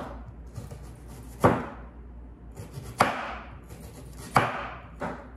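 Large kitchen knife cutting through an onion and knocking down on a wooden chopping board: three sharp chops about a second and a half apart, then a lighter one near the end.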